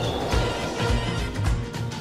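Background music with a steady beat, about two bass thumps a second.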